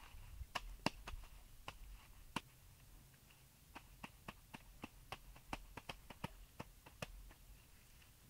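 A run of irregular sharp clicks and knocks, the loudest in the first two and a half seconds, over a faint low rumble.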